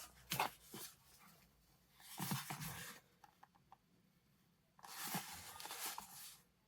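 Packaging of a camera microphone being handled in three bursts of rustling and scraping, with a few small clicks in between.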